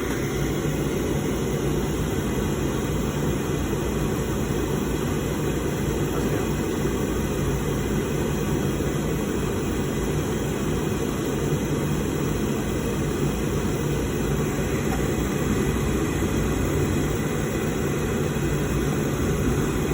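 Oil burner's motor running steadily, the fan and fuel pump whirring with a low hum, while the pump is bled to push air bubbles out of the oil line.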